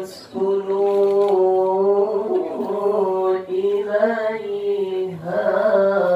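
A man reciting the Quran in the melodic tilawah style into a microphone, holding long drawn-out notes with ornamented turns, and starting a new phrase near the end.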